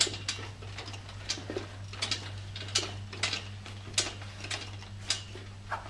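Wheeled gait harness walker clicking and knocking irregularly, about two or three sharp clicks a second, as it is pushed along with each step, over a steady low hum.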